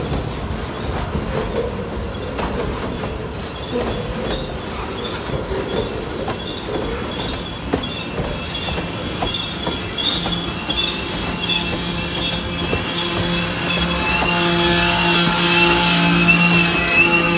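G scale model wood chip hopper cars rolling past on a curve: the wheels rumble and click over the track, with a wavering high-pitched wheel squeal that grows louder toward the end.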